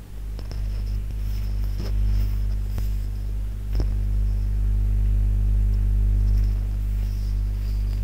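Loud, steady electrical mains hum with its overtones, with a few faint clicks about two, three and four seconds in.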